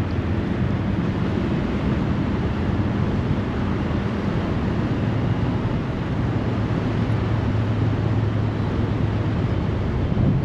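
Steady rush of turbulent, fast-flowing tailwater below a dam, with a low steady hum underneath.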